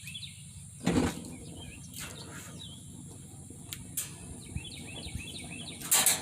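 Gas grill burners being lit: a short loud burst about a second in, a few sharp clicks, and another burst near the end. Birds chirp in the background.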